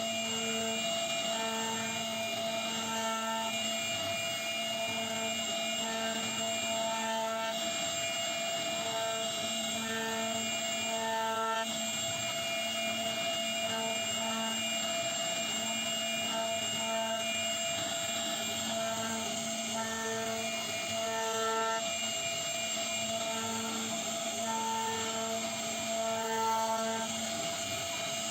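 CNC router carving wood: the spindle runs with a steady high whine, joined by a lower whine that switches on and off every second or so as the machine moves.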